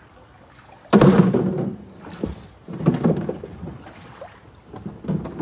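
Water splashing and sloshing against a small boat as it is paddled through floodwater, in irregular surges: a loud one about a second in and more around three and five seconds in.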